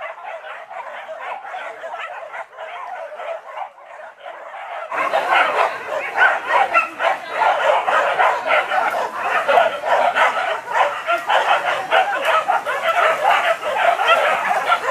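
Hunting dogs barking and yelping in a dense, overlapping chorus, baying at a wild boar. It gets suddenly louder about five seconds in.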